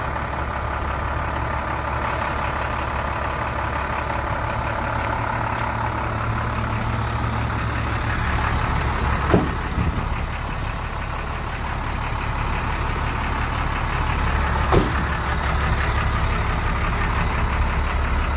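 International DT466 inline-six diesel idling steadily in a 2006 International 4300 box truck. Two sharp knocks sound, one about halfway through and one about three-quarters in.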